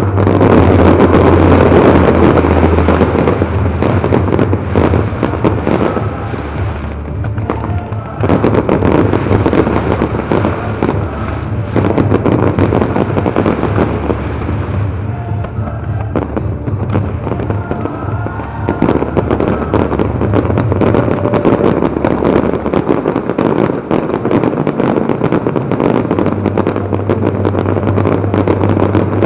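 A fireworks display in full barrage: many shells and comets launching and bursting in quick succession, a dense crackle of bangs with a couple of brief, slightly softer lulls.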